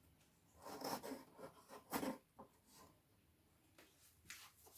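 Faint rubbing and scraping of wooden pieces being handled and fitted into slots, with a few light knocks.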